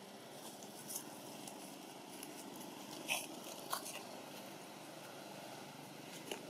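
Faint steady background hiss with four short crunching clicks, about one, three, three and a half and six seconds in, the one near three seconds the loudest.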